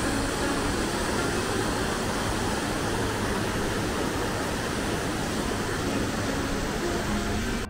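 Steady rush of the Jaldhaka River's water pouring over rocks.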